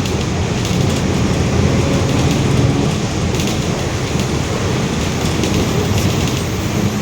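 Mercedes-Benz OF-1721 BlueTec 5 city bus running under way, heard from on board: a steady, deep drivetrain and road rumble that includes the growl of the bus's differential.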